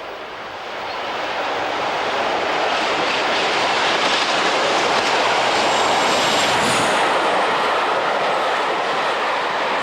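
A train passing by on the rails: a rush of wheel and running noise that swells over the first couple of seconds, stays loud through the middle and eases slightly near the end.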